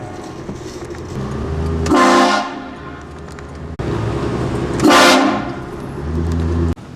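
Car-mounted train horn giving two short, loud blasts, about two and five seconds in, with a low vehicle rumble between them.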